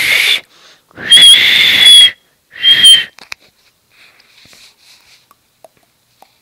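Three loud, shrill, breathy squeals: a short one, then a longer one of about a second, then another short one. After that come faint rustles of the handheld recorder being handled.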